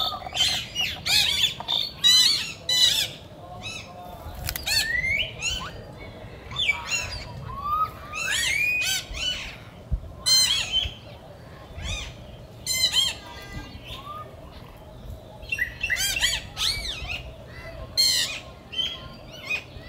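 Many high-pitched animal calls, chirps and squawks one after another, several of them rising in pitch.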